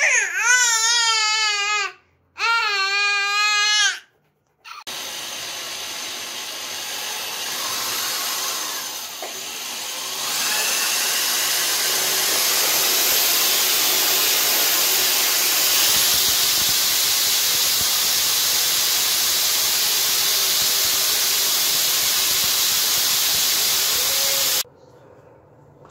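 A small child's voice gives two wavering, drawn-out cries in the first four seconds. Then a corded electric drill runs steadily, boring into a tiled wall, gets louder about ten seconds in, and stops abruptly near the end.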